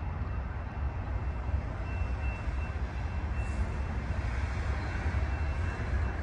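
A train approaching from a distance: a low rumble that slowly grows louder, with a faint thin high tone above it.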